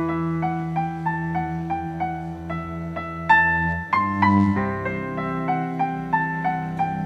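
Keyboard set to a piano sound, playing a song intro live: held bass notes under a repeating figure of higher notes, about three a second, with a louder new chord a little past three seconds in.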